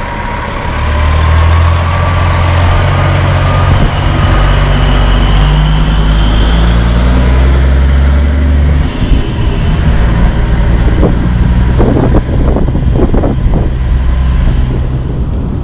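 Diesel semi truck, a long-nose conventional tractor pulling a curtain-side trailer, accelerating away from a stop and passing close by, the engine note climbing and dropping as it shifts up through several gears. Near the end the trailer's wheels go by with a rough, gusty rushing noise.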